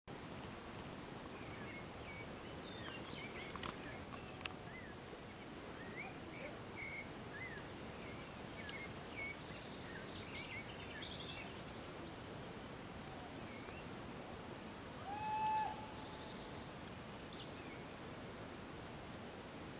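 Small birds chirping on and off over a steady rushing noise, with one louder whistled call about fifteen seconds in and two sharp clicks around four seconds in.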